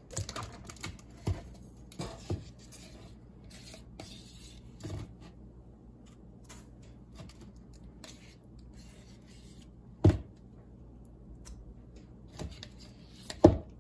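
A plastic spoon scooping thick Greek yogurt from a tub and knocking against a disposable bowl on a kitchen scale: soft scraping and rustling with a few sharp knocks, the loudest about ten seconds in and again near the end.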